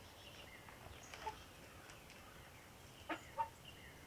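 Backyard hens clucking softly, a few short scattered calls, with two louder clucks about three seconds in.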